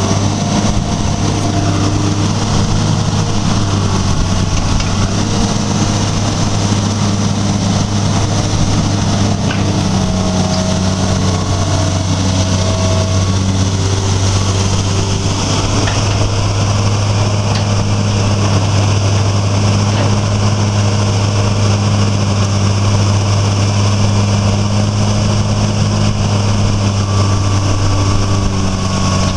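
Fiat-Hitachi FH200 crawler excavator's diesel engine running steadily while its upper structure slews round.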